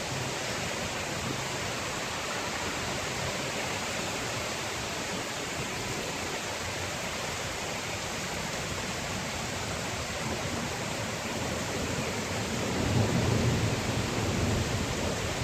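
Steady heavy rain, with a low rumble of thunder building about two-thirds of the way in and loudest near the end.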